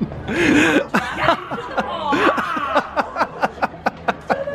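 People chuckling and laughing, mixed with indistinct talk and a scatter of short clicks.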